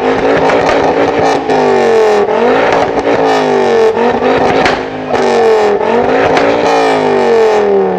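A sports car's engine through an aftermarket exhaust, revved hard, its pitch rising and dropping again and again, a new climb about every second.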